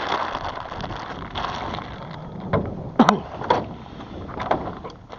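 Water splashing around a small boat in washes about once a second, with a sharp knock against the boat about three seconds in.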